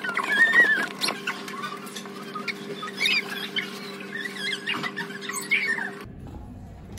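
A baby fussing with short, squeaky whimpers and whines that rise and fall in pitch and stop about six seconds in, over a steady low hum.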